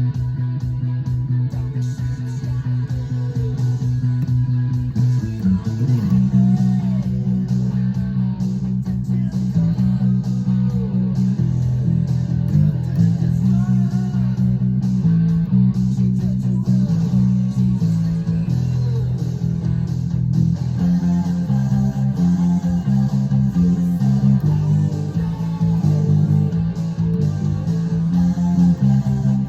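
Rock music with no vocals: bass guitar and electric guitar. Low held notes give way about five seconds in to a driving, rhythmic riff that keeps changing notes.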